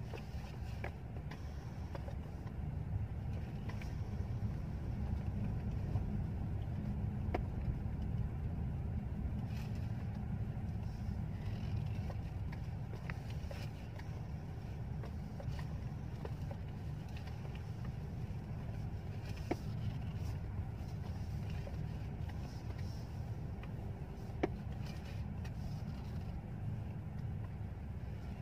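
Low, steady rumble of a Mercedes-Benz S-Class sedan under way, heard inside its cabin: engine and tyre noise, with a few faint clicks.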